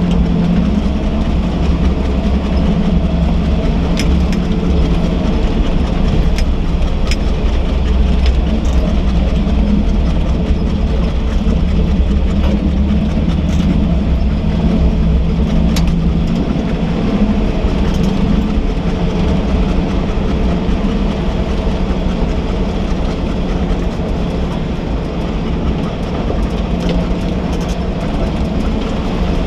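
Chevrolet K5 Blazer's engine running steadily at low speed while the truck crawls down a rocky dirt trail, with occasional sharp clicks and rattles over the rumble.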